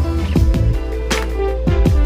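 Electronic background music with a steady beat, about one strong hit every three quarters of a second, over deep bass notes that slide downward.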